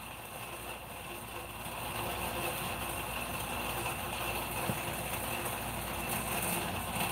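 Steady mechanical hum with a few faint clicks.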